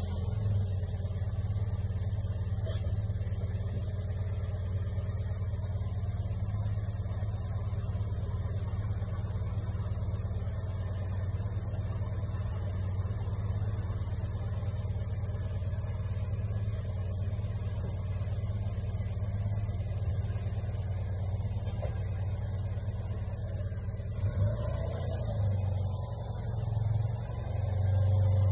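A Citroën Dyane 6's air-cooled flat-twin engine idling steadily. It picks up and grows louder near the end.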